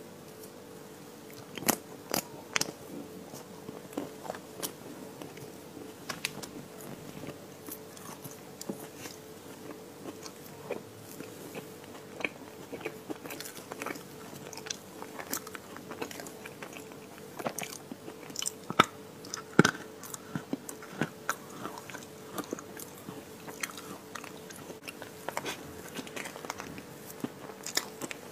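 Close-miked eating of chocolate ice cream cake: chewing and biting with many short, sharp mouth clicks and crunches, over a faint steady hum.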